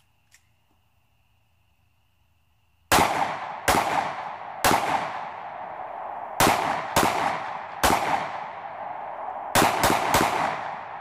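Nine shots from a Jimenez Arms J.A. 9mm semi-automatic pistol, starting about three seconds in and unevenly spaced, the last three fired in quick succession near the end. Each shot is sharp, with a short ringing tail.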